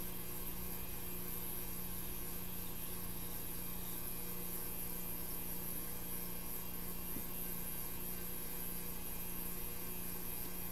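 Steady electrical hum with an even hiss and a faint high whine, unchanging throughout, from equipment running on the electronics repair bench.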